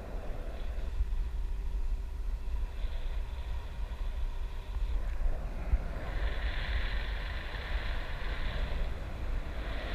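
Wind buffeting the microphone of an action camera carried aloft on a parasail: a low, irregular rumble, with a faint steady hum under it for the first few seconds and a hiss growing about six seconds in.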